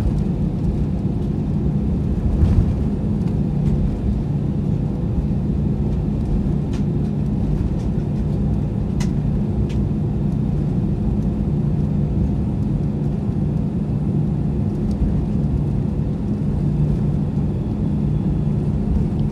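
Airbus A320 cabin noise while taxiing: a steady low rumble from the engines and airframe heard from a seat by the wing, with a faint steady hum and a few light clicks.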